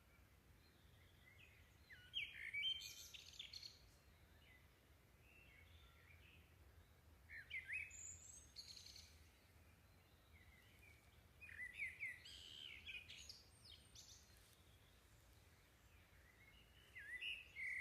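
Faint birdsong: four short bursts of quick chirps, about every four to five seconds, with near silence between them.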